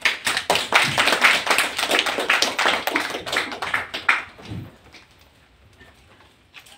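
Small audience applauding, the clapping stopping about four seconds in.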